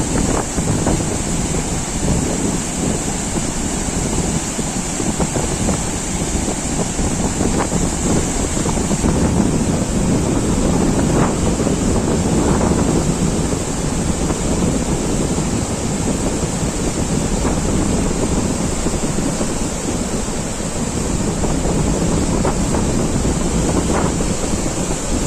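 Flood water rushing steadily, with wind buffeting the microphone.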